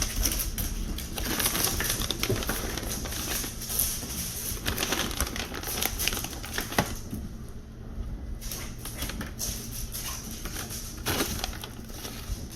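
A plastic treat bag rustling and crinkling as it is opened and rummaged through, busiest over the first seven seconds and sparser afterwards, with a couple of sharp clicks.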